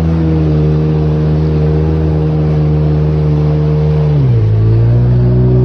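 Jet ski engine running at a steady pitch over rushing water and wind, then its revs drop about four seconds in.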